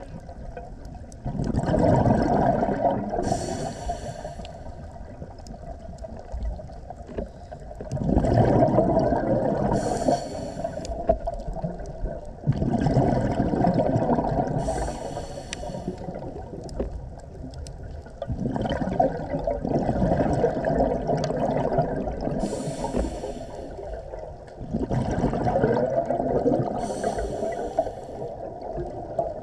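Underwater recording of a scuba diver breathing through a regulator: about five slow breath cycles, each a short hissing inhale and a longer rush of bubbling exhaled air.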